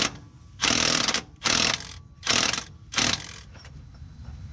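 Cordless power ratchet whirring in four short bursts, the first the longest, spinning in the Jeep Wrangler's front driveshaft bolts.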